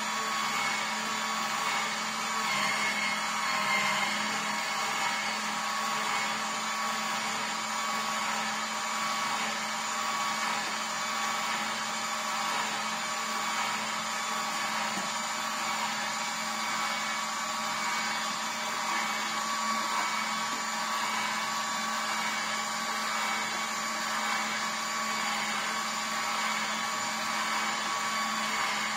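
Vertical slow juicer's motor running steadily while it presses pineapple: a continuous hum with several steady whining tones.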